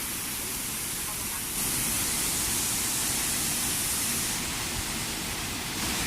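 Steady rushing of a waterfall, the hiss growing louder about a second and a half in, easing a little past the middle and rising again near the end.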